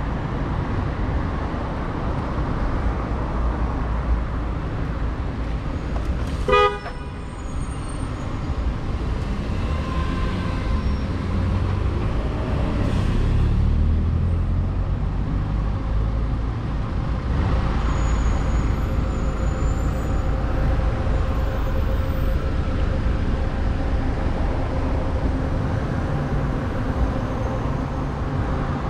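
Steady city road traffic, with one short car horn beep about six and a half seconds in.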